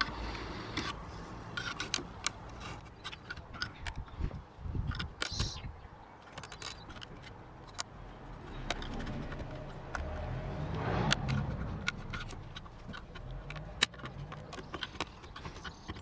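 Small irregular clicks, ticks and scrapes of a flat-bladed screwdriver prying at the plastic clips of a BMW E60 wing mirror's gloss black surround trim. A low rumble swells and fades about eleven seconds in.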